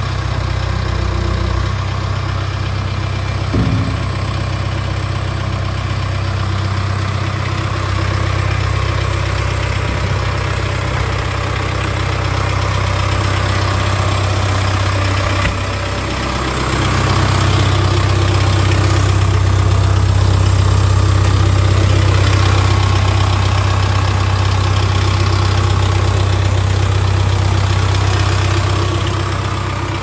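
Diesel engine of a Case 851EX backhoe loader idling steadily with a low hum, growing louder and closer from about halfway through.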